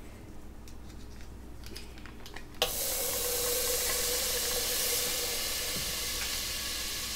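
Butter dropped into a hot nonstick pot, setting off a sudden sizzle about two and a half seconds in that carries on steadily as it melts.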